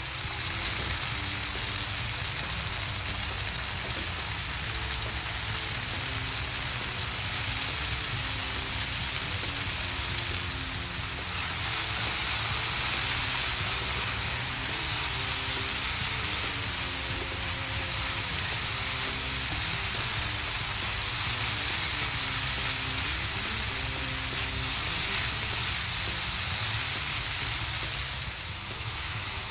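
Food frying in a pan with a steady sizzle. It swells louder a few times.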